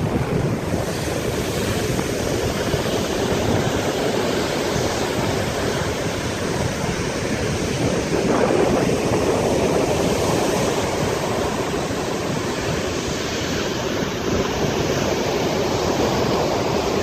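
Storm surf on the sea, waves breaking in a steady unbroken roar that swells a little about halfway through, with wind buffeting the microphone.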